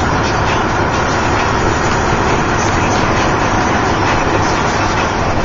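Steady engine and tyre noise inside a truck's cab cruising at freeway speed.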